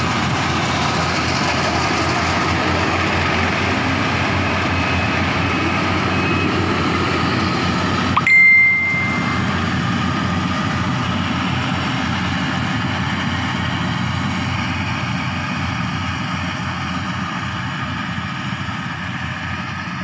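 Rice combine harvester engine running steadily as the machine cuts through the paddy, getting a little quieter as it moves away near the end. A short, loud, high-pitched beep cuts in about eight seconds in.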